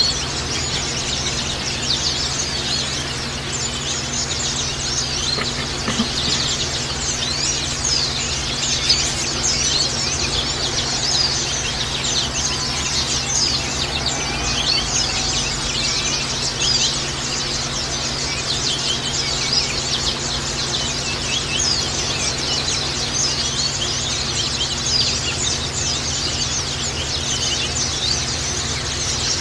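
Many white-eyes (Zosterops) chirping and twittering together in a dense, continuous stream of rapid high notes, with a steady low hum underneath.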